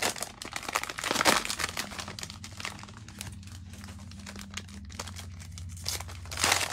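Cellophane wrapper of a cello pack of football trading cards being torn open and crinkled, loudest about a second in and again near the end.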